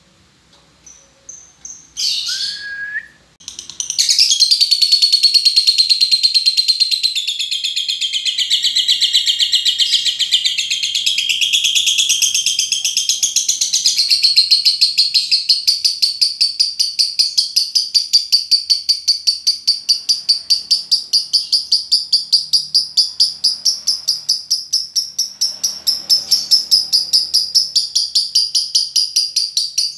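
Lovebird 'ngekek': a long, unbroken chattering song of rapid, evenly repeated high notes. It starts about four seconds in, after a few short chirps and one loud squawk that slides down in pitch.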